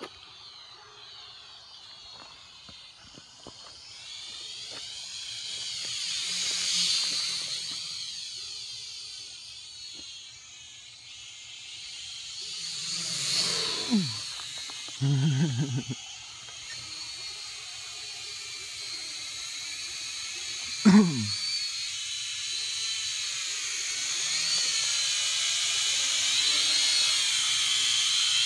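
Small toy quadcopter (Syma X5C-1) in flight, its brushed motors and propellers giving a high whine that wavers in pitch as the throttle changes and grows louder as it comes close near the end. A few brief, louder noises falling in pitch break in past the middle.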